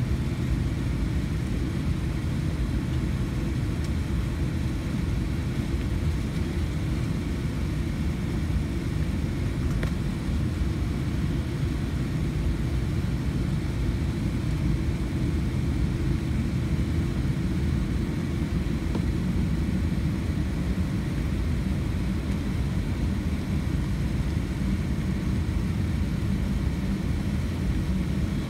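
Cabin noise of a Boeing 787-10 taxiing, heard from inside the cabin: its engines at idle and the rolling of the airliner on the taxiway make a steady low rumble.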